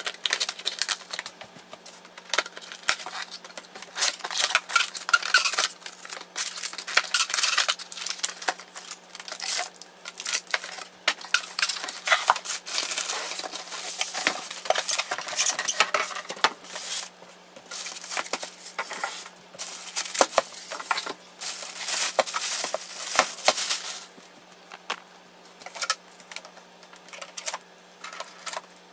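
Unboxing handling noise in irregular bursts: scissors cutting the box open at the start, then cardboard, foam packing inserts and plastic wrap being shuffled and crinkled, and shipping tape being peeled off the printer near the end.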